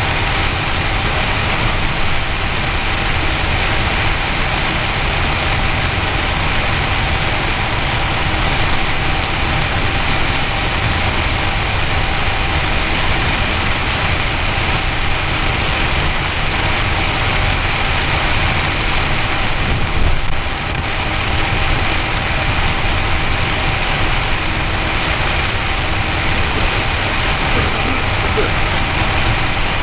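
Torrential rain and tyre noise on a flooded road, heard from inside a moving vehicle as a steady noise with the engine running underneath.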